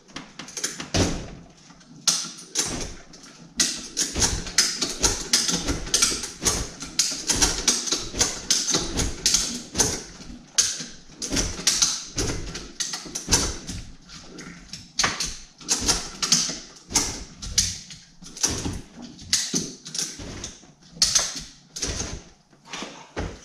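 Rapid, irregular clicking and knocking, a few strokes a second, as the rotten plywood transom is worked up and out of the aluminum boat hull.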